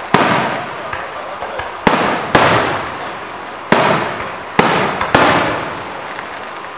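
Aerial fireworks shells bursting overhead: six sharp bangs at uneven intervals, each trailing off over about a second.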